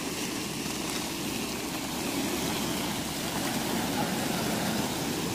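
A large plastic tarpaulin rustling as it is dragged across asphalt, over a steady low rumble of wind on the microphone.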